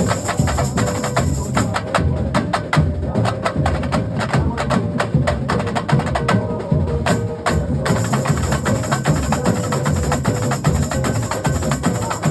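Carnival batucada-style percussion section playing a fast, dense rhythm together, sharp high strikes over a steady low drumming.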